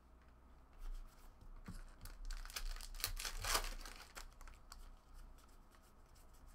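Foil trading-card pack wrapper being torn and crinkled in a run of rustles, loudest about three and a half seconds in.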